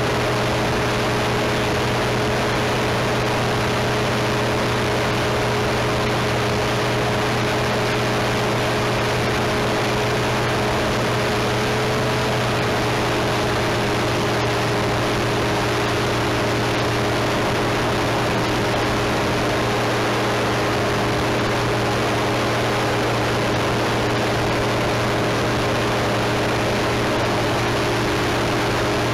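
A small aircraft's engine and propeller running at a steady speed in flight, over a constant rush of noise. The engine note shifts slightly about twelve seconds in.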